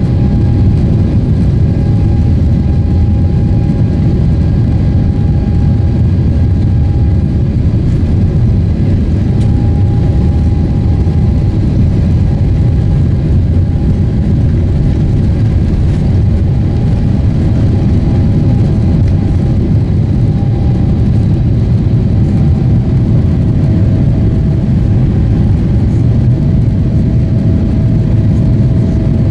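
Boeing 777-300ER's GE90 turbofans at takeoff thrust, heard inside the cabin during the takeoff roll and liftoff: a loud, steady, deep rumble with a faint high hum over it that drops a little in pitch near the end.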